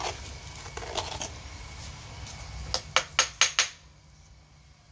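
Kitchen utensils knocking: a spoon and plastic seasoning jars being handled, with a few light knocks and then a quick run of about five sharp clicks near the middle, over a low steady rumble.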